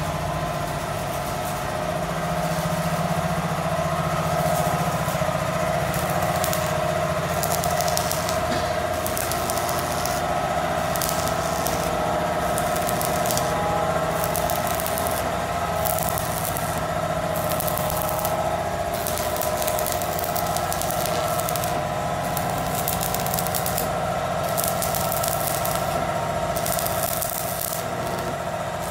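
Arc welding on a truck bed's steel floor plate: crackling, sizzling bursts that start and stop every second or two as short stitch welds are laid along the seam, beginning several seconds in, over a steady mechanical hum.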